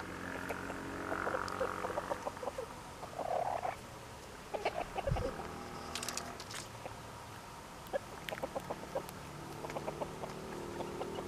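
Silkie chickens clucking in short, soft runs of notes as they forage, with a steady low hum underneath and a few sharp clicks about six seconds in.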